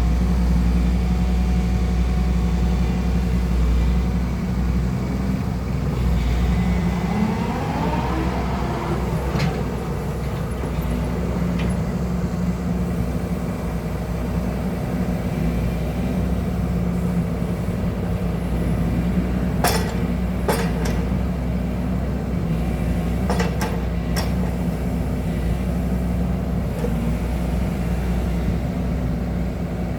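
Excavator's diesel engine running steadily, with a brief rising and falling whine about eight seconds in and a few sharp clanks around twenty and twenty-four seconds in.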